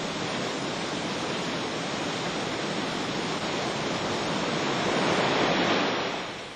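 Waterfall: water rushing and splashing over rocks in a steady roar of noise that swells a little about five seconds in, then fades near the end.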